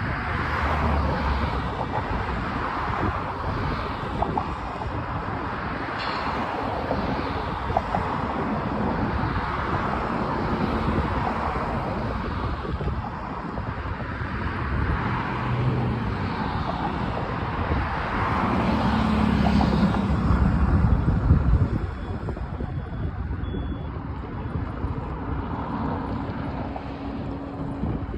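Union Pacific train running: a steady rumble and rush with low engine tones, swelling about two-thirds of the way through. Wind buffets the microphone.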